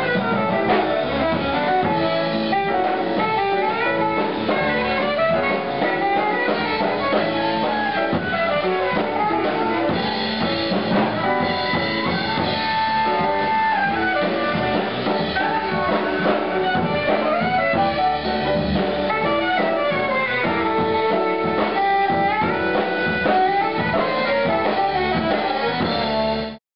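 Live jazz quartet playing: a saxophone winds through a running melodic line over drum kit, piano and bass. The music cuts off abruptly at the very end.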